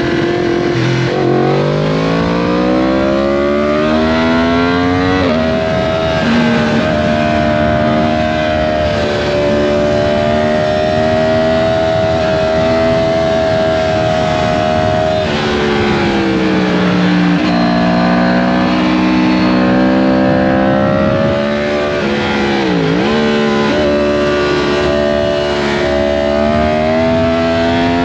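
Yamaha MT-10's crossplane inline-four engine under hard acceleration. The revs climb for the first few seconds, step at a gear change about five seconds in, hold high for about ten seconds, then drop around fifteen seconds in. They climb again, with a brief sharp dip in revs a little over twenty seconds in before rising once more.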